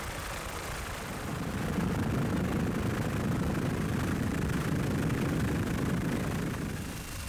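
Steady engine noise of the aircraft filming from above, a low, even drone with no speech. It grows louder about a second and a half in and eases off near the end.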